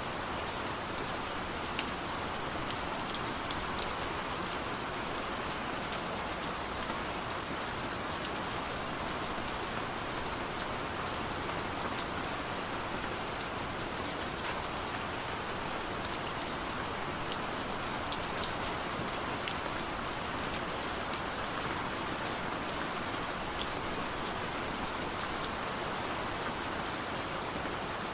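Steady rain, an even hiss of falling water with many small, sharp drop ticks scattered through it.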